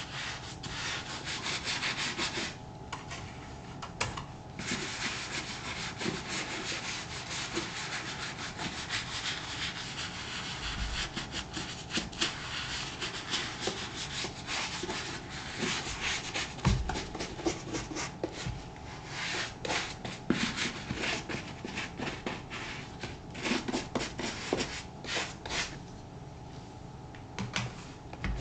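Leather of a Thorogood moc-toe boot being scrubbed with saddle soap: a quick, continuous run of rubbing strokes, with a short pause about three seconds in and a thinning near the end.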